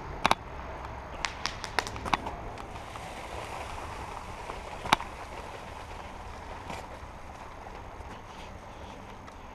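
A handful of sharp clicks or snaps, two close together at the start and about four more over the next two seconds, then one louder snap about five seconds in, over a steady rustling noise.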